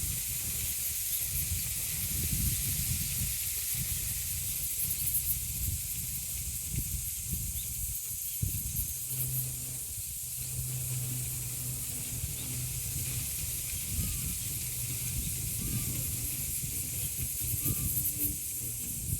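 Wind gusting through birch trees, rustling the leaves and buffeting the microphone, over a steady high-pitched drone of cicadas. From about halfway through, a low steady hum comes and goes.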